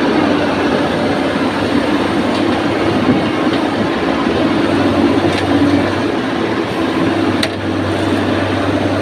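Excavator's diesel engine running steadily under load, with a few faint sharp metallic ticks.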